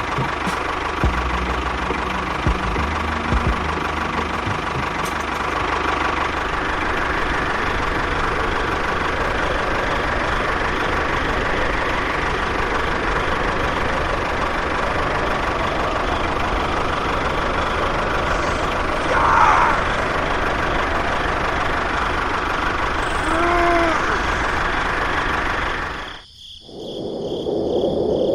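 A mini model tractor's small engine running steadily, with a couple of short squeaks late on. Near the end the sound cuts abruptly to a muffled, duller sound.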